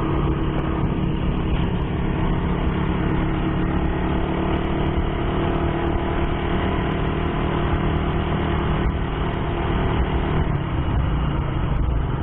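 Motorcycle engine running steadily while riding, with wind noise on the microphone; the engine note shifts about ten and a half seconds in.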